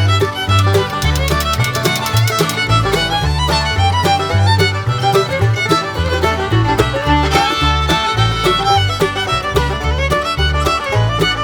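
Background music: a fiddle-led tune with a steady bass line, in a bluegrass or country style.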